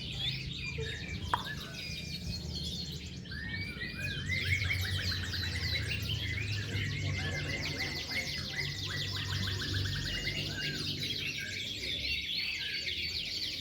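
Many contest canaries singing at once, a dense, continuous mass of rapid trills and warbles, over a low steady hum.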